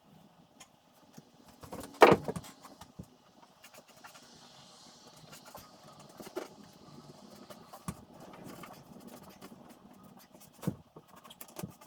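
Scattered knocks and clunks from work on a wooden stair railing, the loudest one about two seconds in and a few smaller ones later.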